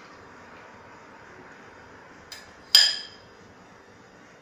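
A steel ladle clinks once against metal, ringing briefly, with a light tick just before it.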